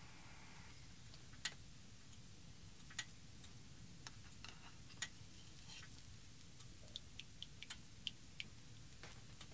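A metal utensil clicks and taps against a small nonstick saucepan on a camper stove. Single sharp clicks come about a second apart, then a quick run of light ringing ticks near the end. A faint steady hum stops just under a second in.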